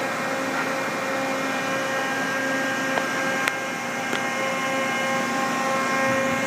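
Steady machine hum with a whine of several steady tones, as from running fans and electrical gear. A few faint clicks come about three to four seconds in.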